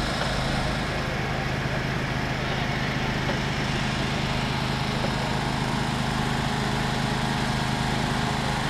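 An engine idling steadily, a constant low hum that holds one pitch throughout.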